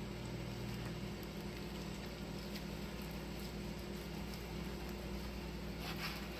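Steady low hum, with the soft sounds of a chef's knife slicing through raw chicken breast on a plastic cutting board and a few light taps near the end.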